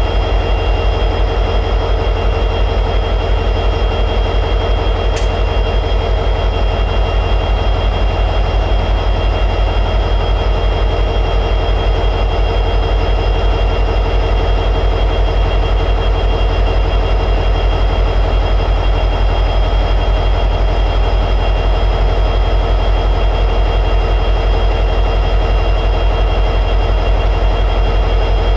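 EMD 710G3B two-stroke diesel prime mover of an SD60E locomotive running steadily at high idle: a deep, even throb with a steady high whine above it.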